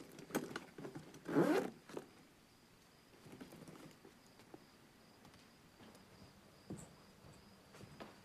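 Soft rustling of a cloth towel being handled and rubbed, in quick scratchy strokes that are loudest about a second and a half in. After that it goes quiet, with only a few faint rustles and taps.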